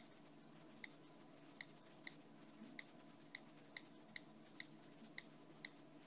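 iPhone on-screen keyboard key-click sounds as letters are typed: about a dozen faint, short ticks, roughly two a second at an uneven typing pace.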